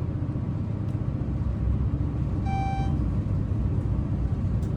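Schindler-modernized passenger elevator car travelling between floors: a steady low rumble, with one short electronic beep about two and a half seconds in.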